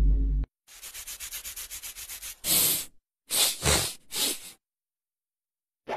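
The tail of a loud sound effect cuts off about half a second in. It is followed by a quick run of soft scratchy rubbing strokes, about nine a second. Then come three or four louder, brief rustling scrapes.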